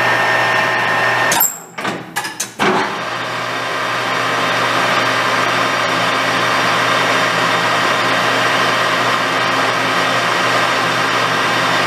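Nardini MS-1440 engine lathe running under power: a steady mechanical whir with a steady hum from its motor and spindle drive. The sound drops away briefly about a second and a half in, then builds back to a steady run.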